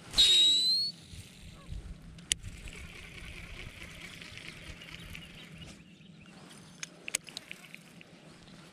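Baitcasting reel casting a lure: the spool spins out with a short, loud rising whine. For a few seconds after that the reel handle is cranked, giving a steady fine buzzing retrieve, and a few sharp clicks follow near the end.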